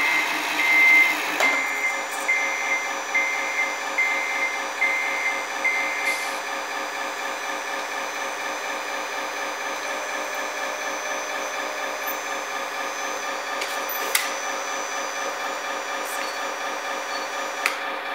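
RC truck sound module playing a steady diesel engine idle, with reversing beeps repeating a little over once a second for the first six seconds, while the hook-lift arm pulls the roll-off container aboard. A thin high whine sits through the middle, and two sharp clicks come near the end.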